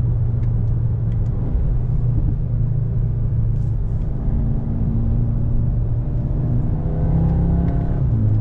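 Inside the well-insulated cabin of a 2021 Audi S3 sedan cruising at road speed: a steady low rumble of tyres and road, with the 2.0-litre turbocharged four-cylinder running underneath. The engine note comes up a little about halfway through.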